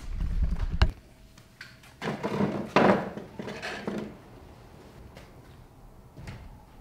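Camera handling noise: a low rumble ending in a sharp knock as the camera is moved and set down, then a stretch of close rustling and shuffling of someone moving right by the microphone, with a few faint knocks later.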